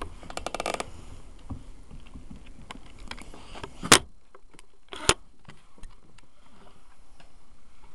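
Handling noise from a phone held against a dog's fur: rubbing and scratching close to the microphone, a quick run of rapid clicks near the start, and two sharp knocks about four and five seconds in. Faint regular pulses come in near the end.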